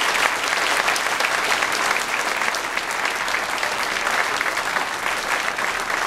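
Audience applauding: many hands clapping in a dense, steady patter.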